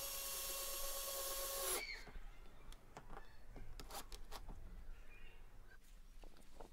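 Cordless drill driver running steadily for about two seconds as it drives a large screw through the plastic shed roof panel into its support, then stopping. Faint scattered clicks and taps follow.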